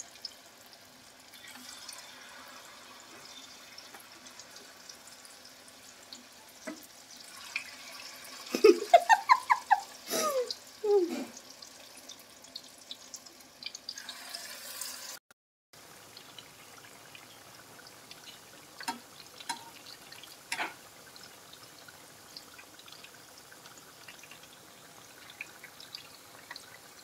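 Battered fritters deep-frying in a wok of hot oil: a steady sizzle with fine crackles and pops. About nine to eleven seconds in, a short run of loud squeaky pitched sounds rises and falls, and a few sharp clicks come later.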